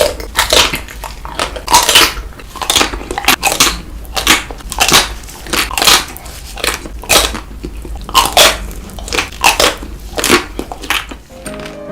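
Close-miked biting and chewing of chocolate-coated ice cream bites (Tico), the frozen chocolate shell cracking in a loud, uneven run of crunches a little under two a second.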